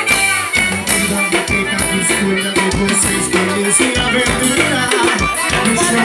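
A band playing music, with a shaker rattling along to a steady beat under the melody.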